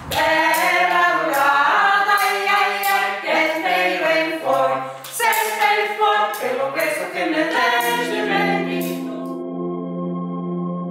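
A cappella choir singing, with crisp consonants cutting through, then holding one long steady chord from about eight seconds in.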